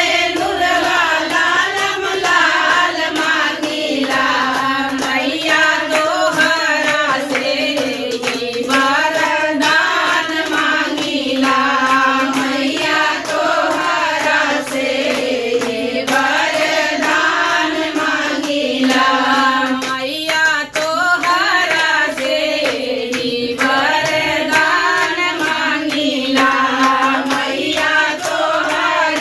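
A group of women singing a devotional folk song to the goddess together, keeping the beat with hand claps.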